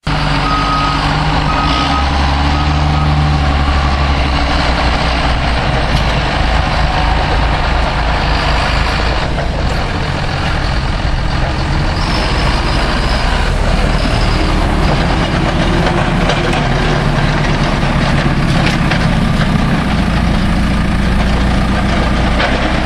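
Diesel engines of a tractor and a JCB telehandler running steadily at work, with a short run of reversing beeps about a second in.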